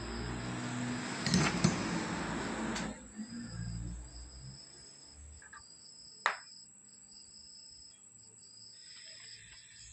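Rustling handling noise with a few clicks for about three seconds, then quiet apart from one sharp click. Throughout, a cricket chirps steadily and high-pitched in the background.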